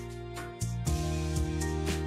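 Background music: sustained notes over a steady ticking beat, with a chord change about half a second in.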